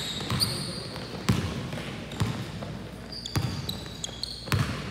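Basketball dribbled on a hardwood gym floor, a sharp thump about once a second, with a few short sneaker squeaks in the second half.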